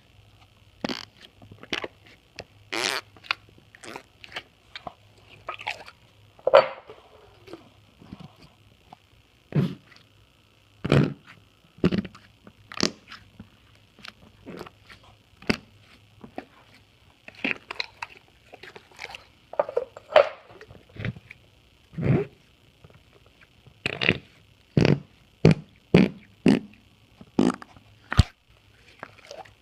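Slime being squeezed and pressed to make short, squelching fart-like pops at an irregular pace, dozens of them one after another, over a faint steady hum from a poor microphone.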